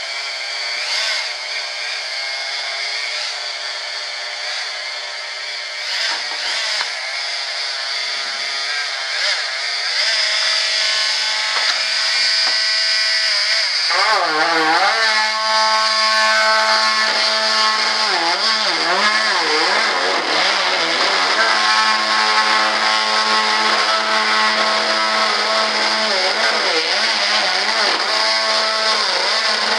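Handheld electric oscillating saw buzzing steadily as it cuts through a laminated fibreglass part. About a third of the way in it gets louder, and around the middle its pitch sags and wavers again and again as the blade bites into the material under load.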